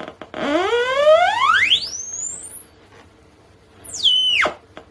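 Homemade CD40106 Schmitt-trigger oscillator putting out a falling-edge sawtooth, its pitch swept by a knob from a low buzz up to a very high whine, held there, then swept quickly back down and stopped about four and a half seconds in. The sweep shows the oscillator's pretty wide range.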